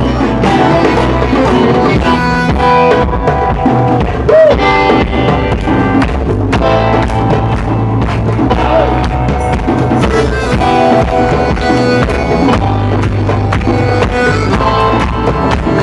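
Live acoustic band music: strummed acoustic guitars over a steady hand-drum beat and bass, an instrumental passage without singing.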